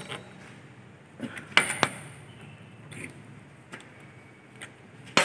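A few light metallic clinks and knocks from a lathe's square tool post being turned and clamped by hand. The loudest, about one and a half seconds in, rings briefly; fainter clicks follow.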